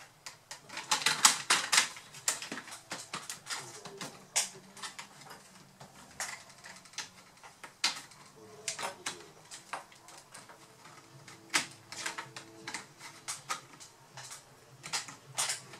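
Irregular plastic clicks, taps and knocks from a Lenovo B50-80 laptop's palmrest and chassis being handled and worked at, with a quick cluster of louder clicks about a second in.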